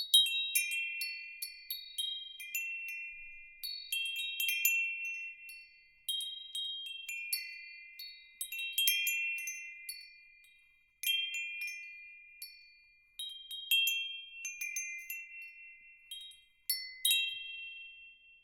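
Metal wind chimes tinkling: irregular clusters of high, clear ringing notes struck as the tubes knock together, each cluster fading out over a second or two before the next.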